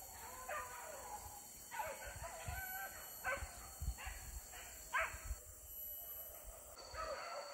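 Hunting dogs barking repeatedly in a string of short, irregular barks, with a brief pause near the end before they start again.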